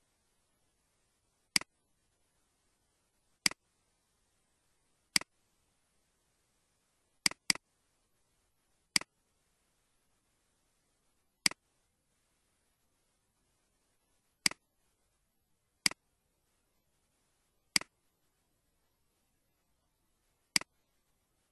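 Computer mouse clicks: eleven sharp single clicks spaced one to three seconds apart, with a quick double click about seven seconds in.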